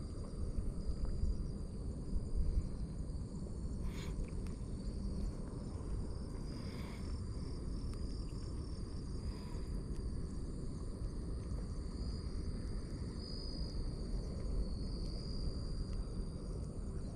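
Insects singing steadily in the grass with high, thin trills, over a low rumble of outdoor noise. A single soft click comes about four seconds in.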